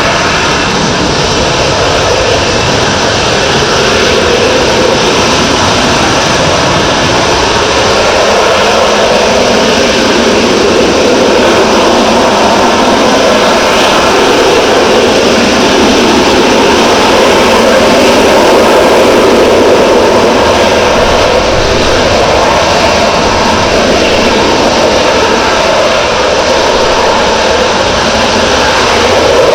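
Loud, steady jet engine noise from the F-35B Lightning II and EAV-8B Harrier jump jet flying a joint display, swelling and easing slightly without a break.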